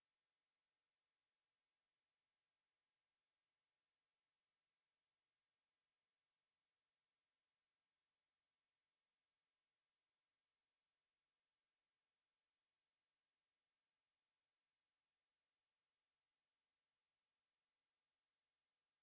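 A single steady high-pitched 7224 Hz sine-wave test tone, held at constant pitch and level without a break.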